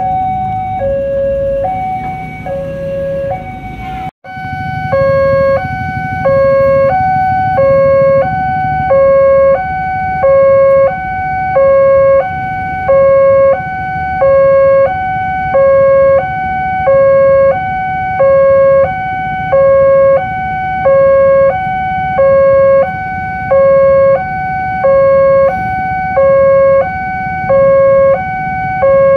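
Railway level-crossing warning alarm sounding a steady two-tone chime, alternating high and low over and over. About four seconds in it cuts to another crossing's alarm, louder and fuller in tone, over a low rumble of traffic.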